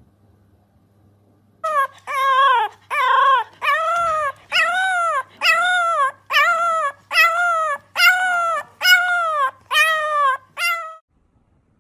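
A French bulldog puppy howling in a run of about a dozen short, high yelping howls, each rising then falling in pitch, about one every 0.7 s. They start about two seconds in and stop suddenly near the end.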